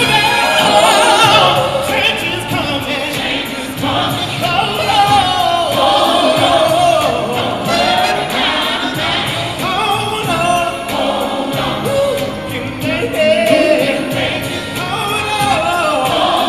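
Gospel choir singing live, the voices holding long, wavering notes and vocal runs over instrumental backing.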